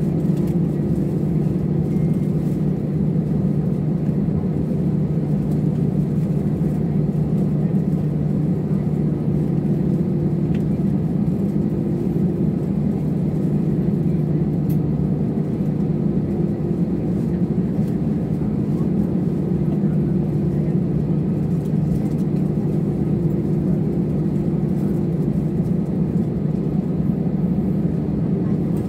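Steady cabin noise of a jet airliner taxiing after landing, heard from inside the cabin: the engines at idle and the airflow make an even, low hum that holds at one level throughout.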